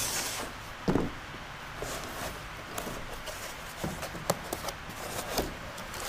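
Cardboard box and packaging being handled and unpacked: a rubbing scrape at the start, a knock about a second in, then scattered light clicks and rustles as the lid is opened and wrapped parts are lifted out.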